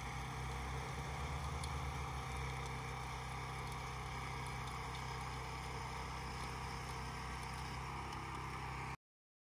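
Small petrol engine of a walk-behind rotary tiller running steadily, a constant low hum that cuts off abruptly near the end.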